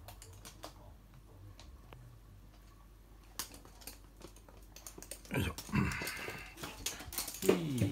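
Toy poodle's claws clicking and skittering on a hard, glossy floor as it moves, the clicks getting denser and louder about halfway through. In the last few seconds a voice with sliding pitch joins in.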